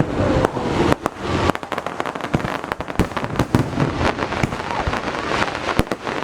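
Close-range fireworks display: many shells bursting in quick, irregular succession, bangs overlapping a continuous crackle.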